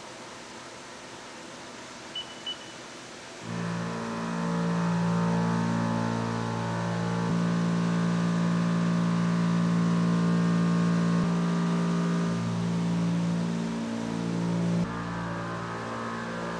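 Flood coolant spraying with a steady hiss inside a Haas CNC mill; about three and a half seconds in, the end mill starts cutting grade 5 titanium, a loud steady hum of several pitched tones that shift a few times as the cut goes on.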